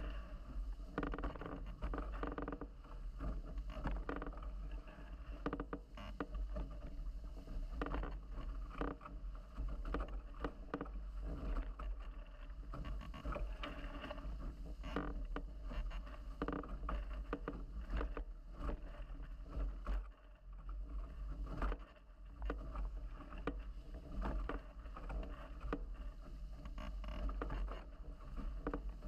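Water rushing and spraying along the hulls of a Nacra 17 catamaran sailing fast under spinnaker, with uneven splashes and slaps, over a steady low wind rumble on the microphone.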